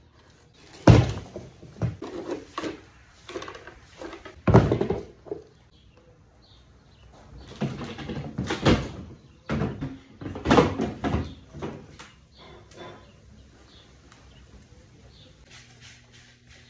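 Broom and long-handled dustpan knocking and scraping on concrete as spilled garbage is swept up and the tools are handled: irregular clatters and thuds, the loudest about a second in and again about four and a half seconds in, quieter from about twelve seconds in.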